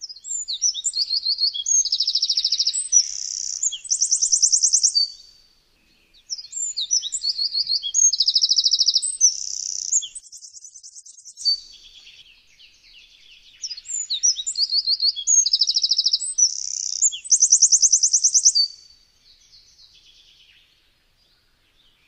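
Eurasian wren singing: three loud bouts of rapid, high-pitched song made of fast trills and runs of repeated notes, each about five seconds long, with short pauses between them.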